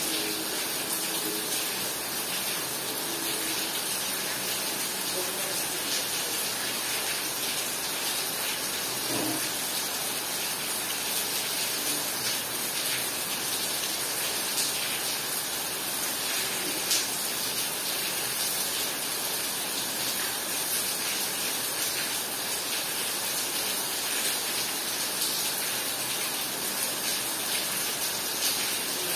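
Heavy rain pouring steadily, with a few sharper drips or splashes now and then.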